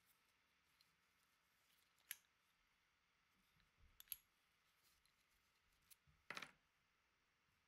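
Faint clicks and clinks of a steel disc-detainer padlock and its key being handled: a few separate small clicks, the loudest a short rattle about six seconds in.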